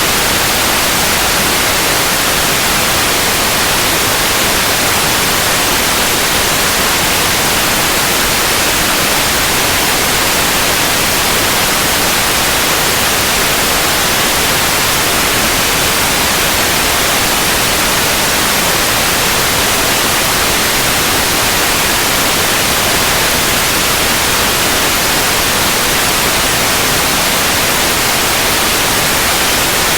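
Steady, loud white noise: an even hiss across all pitches, unchanging throughout.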